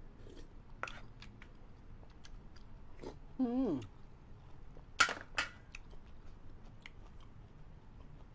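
Close-miked eating of a noodle dish: chewing with wet mouth clicks and smacks. About three and a half seconds in there is a short vocal sound that slides down in pitch, and at about five seconds there is a louder sharp smack.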